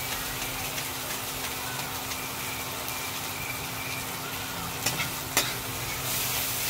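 Chopped onion, tomato and chilli sizzling in hot oil in a metal kadai while a steel spatula stirs them, with two sharp clicks of the spatula against the pan about five seconds in. A faint steady hum runs underneath, and the sizzle grows a little louder near the end.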